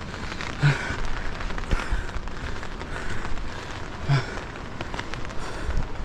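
Rain falling steadily, a crackly patter of drops, with two brief louder thumps about a second in and about four seconds in.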